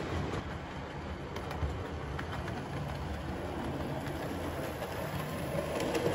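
00 gauge model trains running on the layout: a steady rumble of wheels on rail and motor hum with faint ticks. It grows a little louder near the end as a second train passes close.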